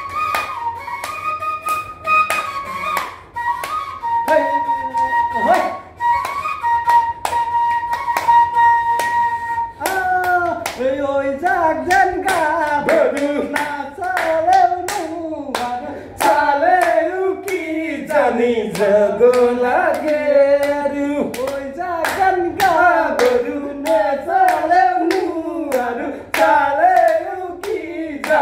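Bamboo flute (bahi) playing a Bihu tune in long held notes over a steady beat of hand claps. About ten seconds in, a voice takes over, singing a wavering Bihu melody while the clapping goes on.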